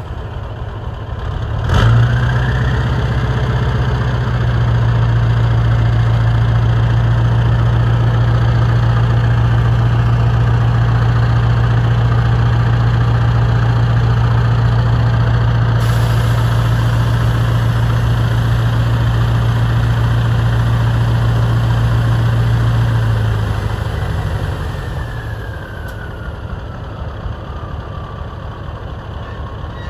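1977 Scania 140's V8 diesel idling, then stepping up sharply about two seconds in to a steady higher speed with a whine rising along with it, as it drives the hydraulics that tip the dump bed. Near the end it runs back down to idle.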